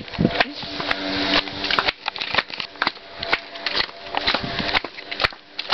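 Frequent knocks, rubs and scuffs from a handheld camera jostled about while its holder walks on a stony path, with a short steady hum about a second in.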